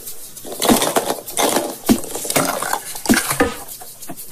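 A glittery hard-plastic nesting egg being pulled open and handled, with a run of clicks, knocks and rustly clatter. A smaller egg from inside is set down on the table near the end.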